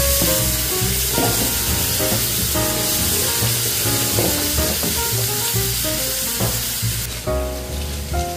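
Sliced calabresa sausage and diced onion frying in a nonstick pan, a steady sizzle as a spoon stirs them, under background music. The sizzle thins near the end.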